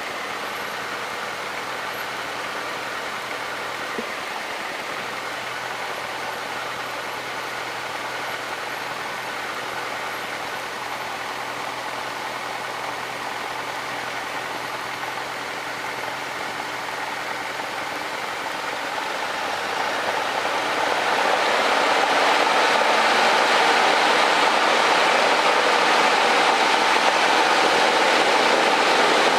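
Cessna 152's four-cylinder Lycoming engine heard from inside the cockpit, running steadily at low power, then growing louder from about eighteen to twenty-two seconds in as the throttle is opened to full power for the takeoff, and holding there.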